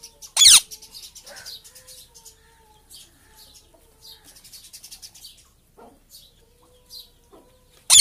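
Rose-ringed parakeet giving a loud, sharp screech that falls in pitch about half a second in, and another near the end, with faint high chirps in between.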